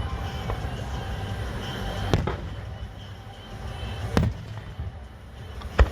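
Fireworks shells bursting: four sharp bangs about two seconds apart, over a steady low rumble.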